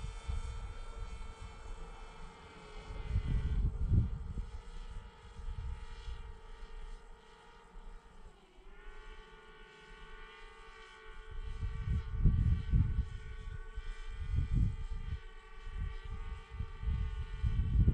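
Multirotor drone's propellers whining steadily at several pitches at once, the pitch dipping briefly and recovering about eight seconds in. Gusts of wind buffet the microphone, strongest near the end.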